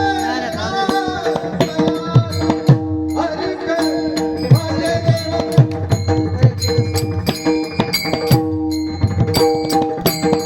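Indian folk-style music: steady drum beats over sustained held notes, with a bending melodic line near the start.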